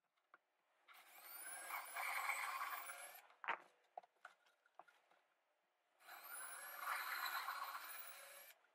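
Power drill boring through 1/2-inch birch plywood in two runs of about two seconds each, with a few clicks and knocks between them.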